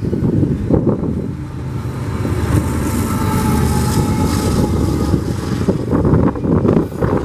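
CPKC train rolling past, its rail cars making a continuous rumble, with strong wind buffeting the microphone.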